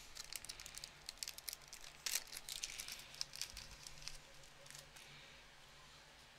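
Thin plastic card sleeves crinkling and rustling as one is pulled from its plastic pack, a run of quick crackles and clicks, loudest about two seconds in, dying away after about four seconds.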